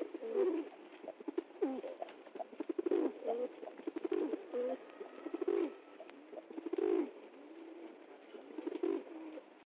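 Pigeons cooing: a continuous string of low, throaty coos, one after another.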